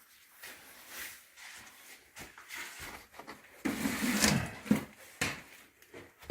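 A few knocks and rattles, with a louder stretch of clatter about four seconds in and two sharp clicks soon after.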